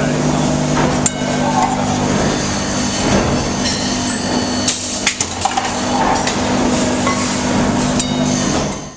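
Cookware factory production-line machinery running with a steady hum and scattered metallic clanks and knocks. It cuts off abruptly at the very end.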